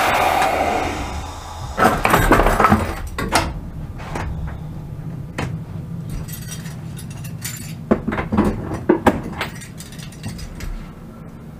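Cab of a standing ET22 electric locomotive: a loud rush of noise fades over the first second or so, then two clusters of sharp clanks and clicks, about two to three seconds in and again near eight to nine seconds, over a steady low hum.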